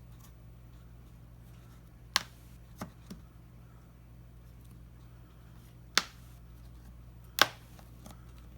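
Plastic retaining tabs on a Samsung Galaxy Tab 4 8.0's back cover snapping loose one at a time as it is pried off the mid-frame. There is a sharp snap about two seconds in, two softer clicks just after it, and two more sharp snaps later on.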